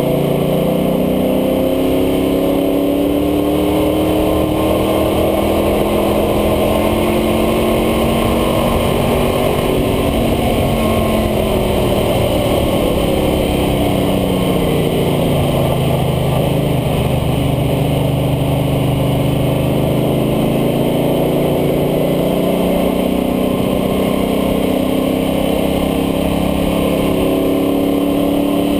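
International Harvester Scout II's engine under way at track speed, heard from a camera on the front air dam. The engine note climbs for about ten seconds, drops away, holds low for a few seconds, then climbs again near the end, over steady wind and road noise.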